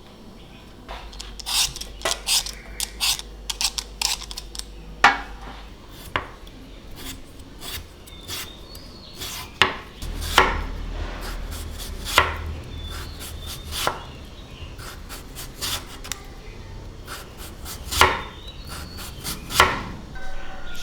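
Knife chopping food on a cutting board: irregular sharp strikes, a handful of them clearly louder, with softer scraping between cuts.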